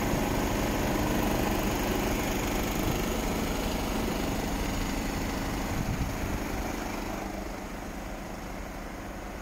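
Mercedes-Benz Actros 1843's straight-six diesel engine idling steadily, heard close in front of the grille, growing fainter over the last few seconds as the distance grows.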